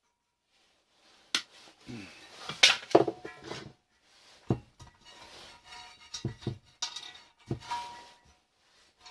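Loose metal scrap parts being handled and knocked together: an irregular run of sharp knocks and clanks, some with a short metallic ring, starting about a second in.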